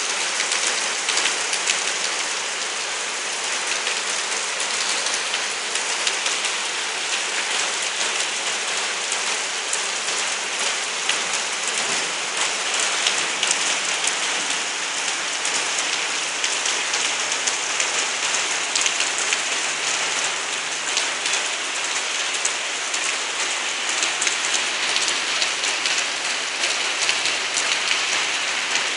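Steady rain falling, a continuous hiss with many separate drop impacts ticking through it, holding at an even level.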